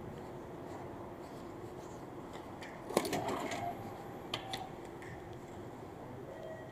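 Station concourse hum with the clack of an automatic ticket gate about three seconds in, followed by short electronic beeps, and another click and beep about a second later as the gate is passed through.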